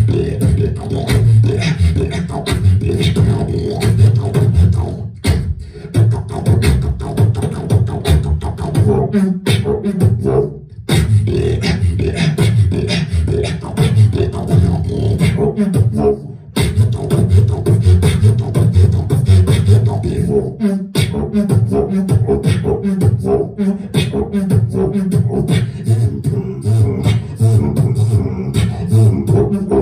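Solo beatboxing through a handheld microphone: a fast, continuous run of percussive mouth sounds over deep sustained bass tones, with a few brief breaks, about five, eleven, sixteen and twenty-one seconds in.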